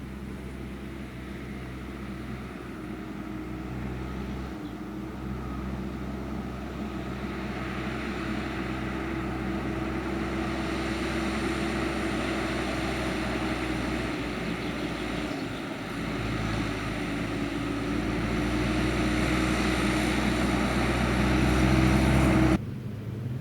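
Diesel engine of a large harvest machine running steadily, growing louder as it draws nearer, until the sound cuts off abruptly near the end.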